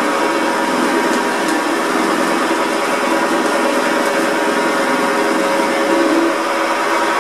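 Woodworking lathe running with a hand-held turning tool cutting a spinning brass rod: a steady machine whir mixed with the noise of the cut.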